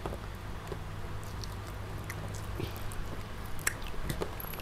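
A child biting and chewing crispy fried chicken close to a clip-on microphone: soft wet chewing with small scattered clicks and a couple of sharper ticks late on, over a steady low hum.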